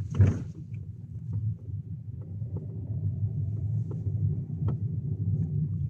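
Ford Fiesta 1.25 driving, a steady low rumble of engine and road noise heard from inside the car, with a few faint clicks.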